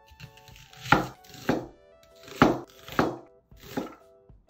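A broad-bladed knife chopping through a peeled onion onto a wooden cutting board: five crisp strokes, the first four in two quick pairs.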